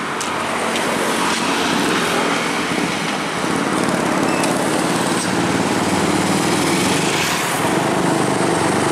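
Road traffic: the diesel engine of an approaching Fuso cargo truck running, with small motorcycle engines passing close by. It gets a little louder over the first couple of seconds, then holds steady.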